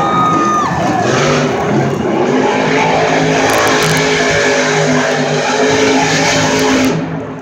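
Monster truck engines revving hard in an arena, the pitch stepping up and down as the throttle is worked. The sound drops away abruptly near the end.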